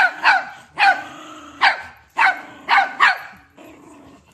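A small curly-coated dog yapping: about six short, high barks in quick succession, each dropping in pitch, stopping about three and a half seconds in.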